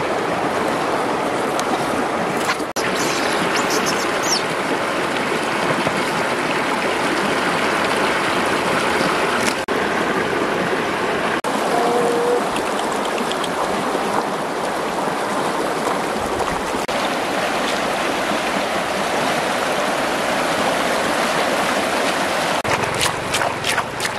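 Shallow stream water running and trickling over rocks, steady throughout, briefly cut off a few times. A few small clicks near the end.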